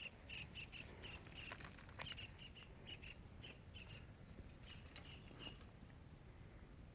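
A small bird chirping over and over, short high chirps about two or three a second, stopping about five and a half seconds in, over a faint low rumble.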